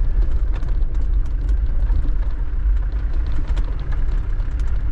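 Land Rover Defender driving across a dirt lot, heard from on board: a steady low engine and road rumble with faint scattered rattles.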